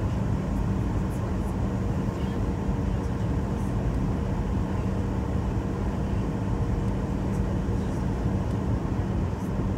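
Steady cabin noise inside a passenger airplane in flight: a constant rush of engine and airflow with a steady low hum underneath.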